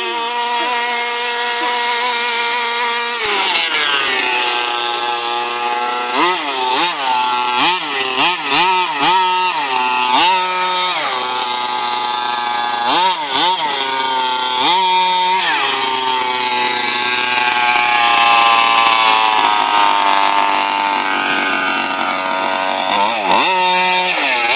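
Radio-controlled buggy's small two-stroke engine idling steadily, then revved up and down in a string of quick blips, and later held at higher revs as the car drives.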